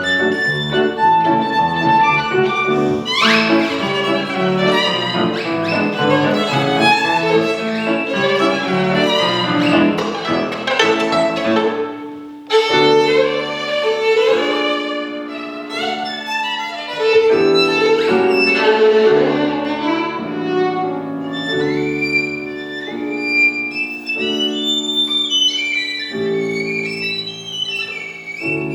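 Violin with piano accompaniment playing a fast, lively showpiece: quick violin runs with an upward slide about three seconds in, a short break about twelve seconds in, then longer, sliding high violin notes over piano chords.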